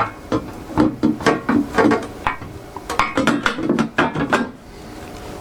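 Home-made sheet-metal enclosure clanking and rattling as it is handled: a quick string of light metallic knocks, each with a short ring, that stops about a second before the end.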